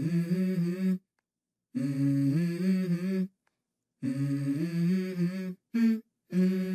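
A voice humming a slow melody with no accompaniment, in phrases of about a second and a half, each broken off by a short silence.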